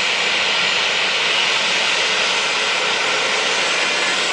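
Airliner jet engines running steadily: a loud, even rushing sound with no change in level.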